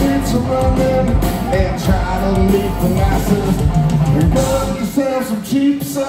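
Live rock band playing: a man singing over electric guitars and a drum kit.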